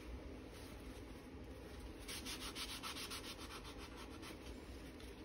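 Hand sanding on a vintage draw knife: faint back-and-forth rubbing strokes that turn quicker and louder about two seconds in, about five strokes a second.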